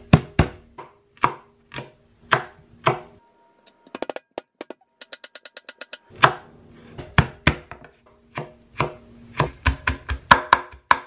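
Chef's knife chopping garlic cloves on a bamboo cutting board, the blade knocking sharply on the wood. The strokes are slow and spaced at first, pause for a few seconds, then come quicker and closer together as the garlic is minced fine.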